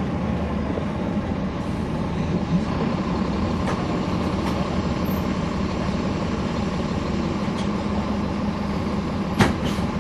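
Caterpillar C13 ACERT diesel engine of a NABI 40-SFW transit bus running steadily, heard from the back of the bus inside the cabin, with the radiator fans running. A single sharp knock sounds about nine seconds in.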